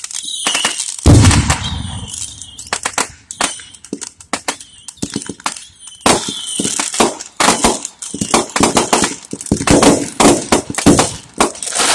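Fireworks going off: aerial shells bursting with sharp bangs, the loudest about a second in. From about halfway through comes a dense run of rapid crackling reports.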